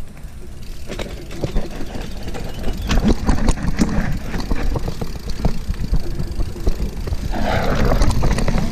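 Mountain bike riding fast down a dirt trail, heard from on the bike: a steady rumble of tyres and wind, with the rattle and clicks of the bike jolting over bumps. Near the end there is a rushing brush as the bike pushes through ferns.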